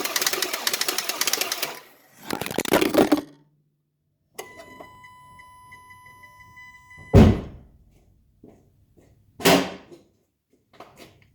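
An engine being cranked by its starter without catching, a fast even churning that dies away. A short burst follows, then a steady electronic tone for about three seconds, then two heavy thunks a couple of seconds apart.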